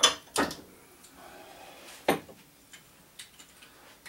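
Objects being handled and set down on a workbench: two sharp knocks right at the start, another about two seconds in, then a few lighter ticks and clicks.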